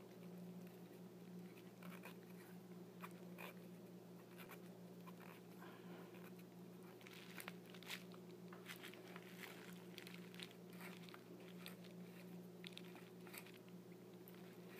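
Near silence over a steady low hum, with faint scattered clicks and rubbing from the small parts of a Lionel postwar train tender being handled and worked, busiest in the second half.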